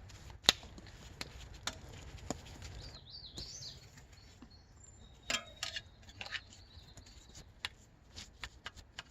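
Scattered light clicks and knocks from handling a folding bicycle, the sharpest about half a second in. A bird chirps briefly about three seconds in.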